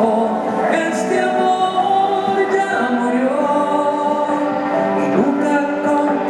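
A man singing a Spanish-language love ballad into a microphone, holding long notes.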